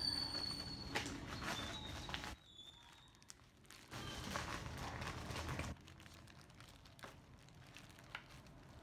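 Plastic packaging crinkling, with small clicks and rustles as a motorcycle helmet is handled. A low background rumble cuts off suddenly twice, and a few faint bird chirps come through.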